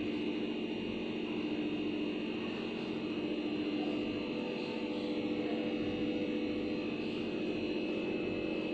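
A steady drone with several fixed tones, its level unchanging.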